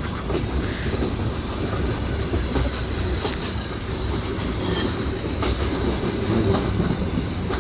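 Passenger train carriage running along the track, heard from inside: a steady low rumble of the wheels with a few scattered clicks over the rail joints.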